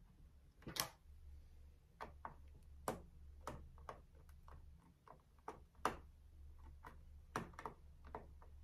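About a dozen small, irregular clicks and ticks from a precision screwdriver turning the screws of a Dell G16 laptop's bottom panel to loosen them, over a faint low hum.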